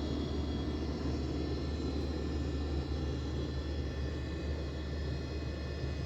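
LG 1.5-ton inverter air conditioner running with a steady low hum and a faint high whine over it. This is the noise that is put down to its copper refrigerant piping.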